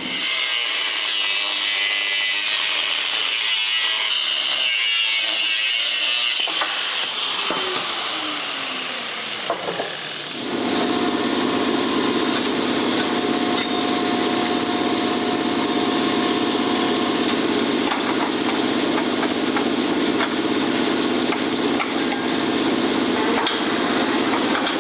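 Power tool cutting metal, running continuously; about ten seconds in, its sound changes abruptly to a lower, fuller sound with a steady whine.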